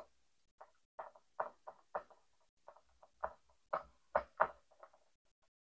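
Dry-erase marker writing on a whiteboard: a run of about a dozen short, faint squeaks and scratches, one per pen stroke, stopping shortly before the end.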